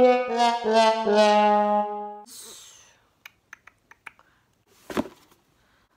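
A comic sad-trombone brass sting: four falling notes, the last held for about a second with a wobble. Afterwards a few faint clicks and a brief soft thump about five seconds in.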